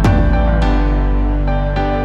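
Background music: slow, calm keyboard notes struck a few times and left to ring over a held bass note.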